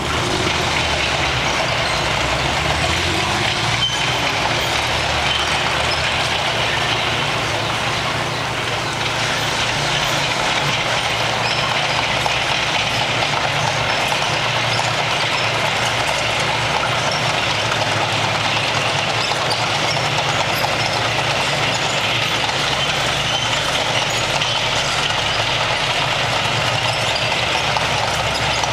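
T-34 tank's diesel engine running steadily as the tank drives slowly over cobblestones, with the clatter of its steel tracks.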